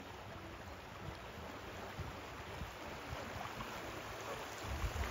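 Steady rush of flowing river water, with irregular low rumbles that grow near the end.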